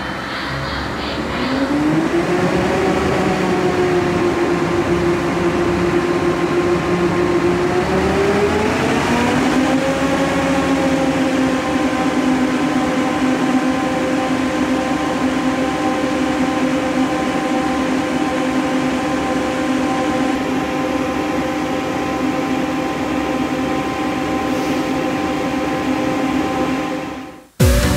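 Fendt Katana self-propelled forage harvester running up. Its pitch rises in two steps, about a second in and again around nine seconds in, then holds as a steady mechanical whine. It cuts off sharply near the end.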